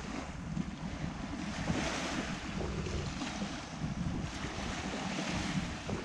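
Surf washing onto a sandy beach, swelling about two seconds in and again near the end, under wind buffeting the microphone.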